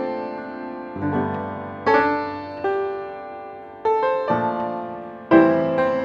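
Background piano music: slow chords and notes struck about once a second, each left to ring and fade before the next.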